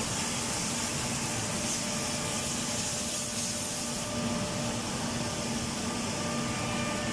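Anderson PTP-3013 CNC machining center running: a steady mechanical hiss with a low hum, its highest hiss dropping away about four seconds in.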